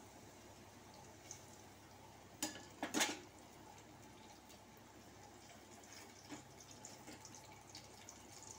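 Cooking oil heating in an aluminium kadai, giving faint scattered ticks and pops. Two louder clicks sound about two and a half and three seconds in.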